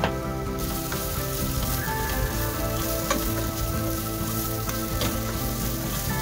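Sliced onion and green pepper sizzling steadily in hot oil in a nonstick pot. A few light clicks and scrapes come from the kitchen tongs as the vegetables are stirred.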